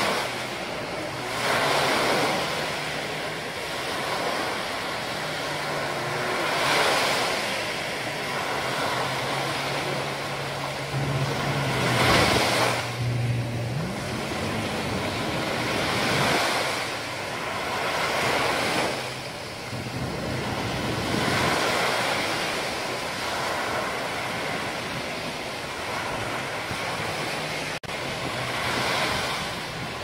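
Small surf waves breaking and washing up on a sandy beach, swelling every few seconds. A low steady hum sits underneath and is strongest around the middle.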